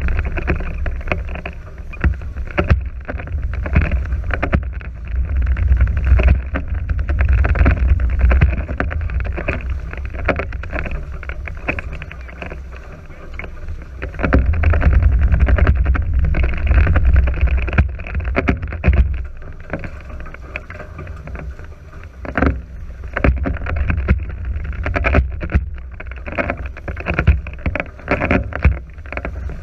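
Water rushing and slapping against the hulls of a Nacra 5.0 sailing catamaran under way, in many short uneven splashes. Wind rumbles on the microphone underneath, heaviest a little past the middle.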